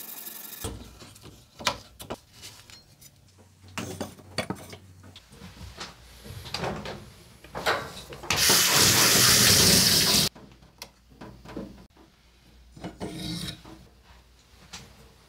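Hands wiping and handling a carbon-steel yanagiba sashimi knife with a cloth pad: scattered light clicks and rubbing strokes. A little past the middle comes the loudest sound, about two seconds of rushing noise that stops abruptly.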